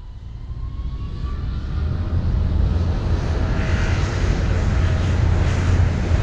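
Jet engine sound swelling up over about two seconds, a faint rising whine at first, then a steady rumble and rush, fitting a torpedo-launch joke.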